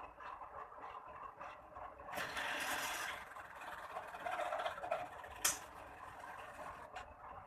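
Low mechanical clattering and scraping, with a hiss of about a second some two seconds in and a sharp click later on.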